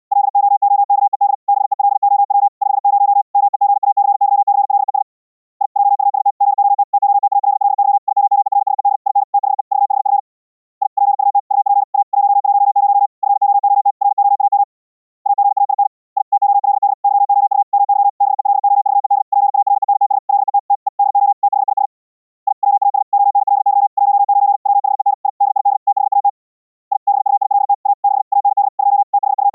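Fast Morse code (CW) made of short dots and dashes of band-limited Gaussian noise pitched around 800 Hz, keyed on and off in rapid runs. About every four to five seconds the notes stop for roughly half a second.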